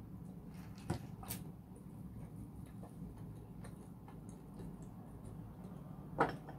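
Quiet eating and food-handling sounds: a few soft clicks and taps over a low steady hum, the loudest about six seconds in.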